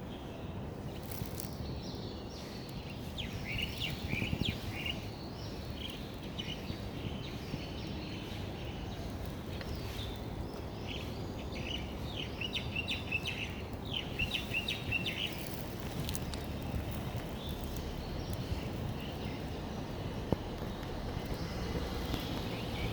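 Outdoor ambience: a steady low rumble, with small birds twittering in short bursts, most busily a few seconds in and again around the middle.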